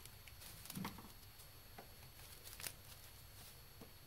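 Faint, scattered clicks and rustles of gloved hands working a plastic push-in fuel injector harness connector, prying at its locking tab.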